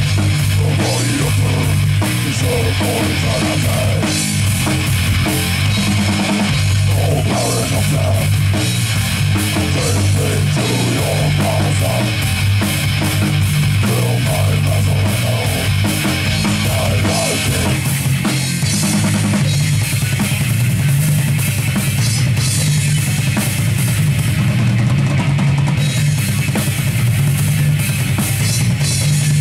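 Heavy metal band playing live: electric guitar, bass guitar and drum kit, with a driving bass drum and cymbals, loud throughout.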